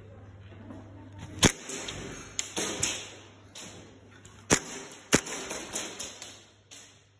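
Airsoft guns firing: three loud sharp cracks, one about a second and a half in and two close together about four and a half to five seconds in, with softer knocks and rustling between.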